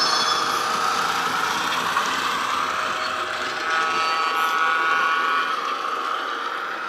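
Diesel shunter engine sound from a DCC sound decoder, played through the small speaker of a Triang model dock shunter as it runs, mixed with the running noise of a rake of model wagons on the track. The sound swells in the middle and fades near the end as the train draws away.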